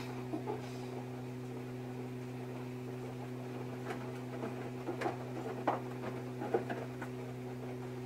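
Samsung front-loading washing machine running a wash: a steady hum from the drum drive, with the tumbling laundry giving off scattered light clicks and knocks, a few sharper ones between about four and seven seconds in.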